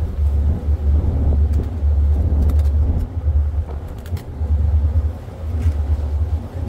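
Wind buffeting the phone's microphone, a loud uneven low rumble, with a few faint clicks as a dog chews and tugs at a plush toy.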